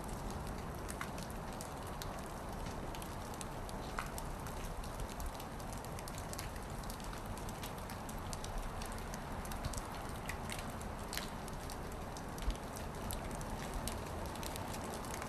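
Heavy wet snow falling and pattering on surfaces close by: a steady hiss with many small scattered ticks and a low rumble underneath.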